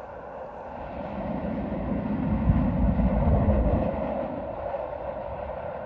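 A passing vehicle's low rumble swells and fades over a few seconds, over a steady hum.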